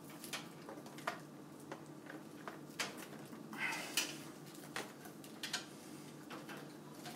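Irregular small clicks, taps and a brief rustle of computer cables and plastic connectors being handled and routed inside a PC case, over a steady low hum.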